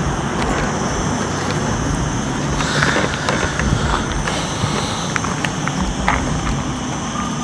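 Small quadcopter drones hovering, with a faint steady high propeller whine over a constant low outdoor rumble.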